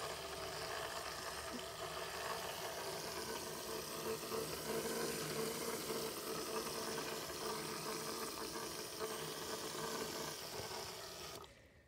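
KidzLabs Tornado Maker's battery-powered motor and propeller spinning water into a whirlpool in a plastic bottle: a steady whirr over swirling water. It stops abruptly near the end.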